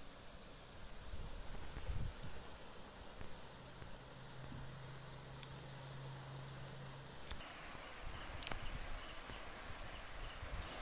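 Insects chirring continuously in a high register over a low, even outdoor wash. A faint low hum joins for a few seconds in the middle.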